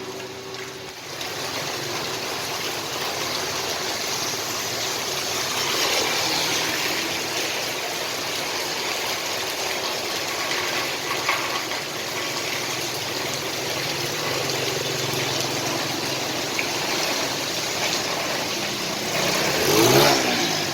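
Heavy rain pouring steadily over a street, with traffic engines running beneath it. Near the end a vehicle passes close by, the loudest moment.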